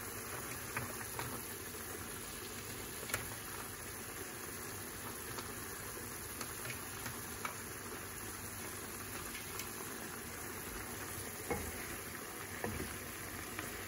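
Chicken, shrimp, carrot and green beans sizzling in a non-stick frying pan while a wooden spatula stirs them, with a few light knocks of the spatula against the pan.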